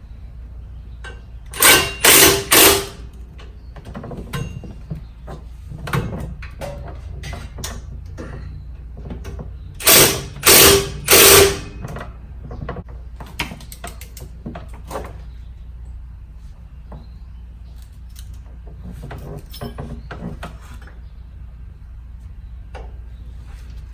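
Three short bursts of a power wrench, most likely a cordless impact wrench, tightening brake caliper bolts, then a pause and three more bursts, with lighter clicks and knocks of tools and metal parts in between.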